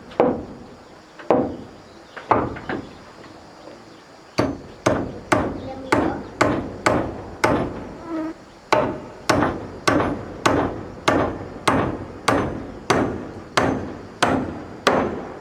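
Hammer blows on wood: a few scattered strikes, then a steady run at nearly two a second with a short break near the middle, as when nailing timber.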